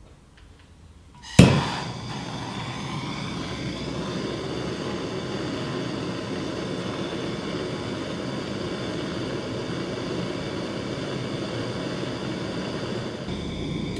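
Hand-held gas soldering torch lighting with a sudden loud pop about a second in, then burning with a steady hiss as it heats a copper elbow joint for soldering.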